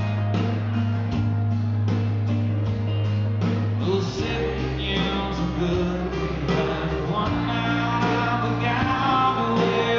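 Live country band playing: acoustic guitar, bass and drums keeping a steady beat, with a man singing lead over it.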